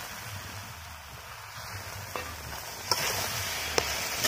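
Vegetables sizzling and steaming in a metal pan over a wood fire, a little water just added, with a spatula stirring through them and knocking against the pan a few times in the second half.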